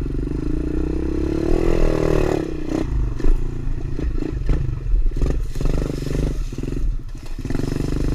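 Small four-stroke pit bike engine running under way, revving up briefly about two seconds in, then carrying on with frequent clattering and scraping knocks as the bike rides over rough trail.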